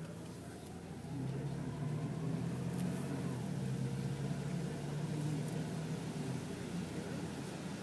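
A motor vehicle's engine running steadily with a low hum, getting louder about a second in.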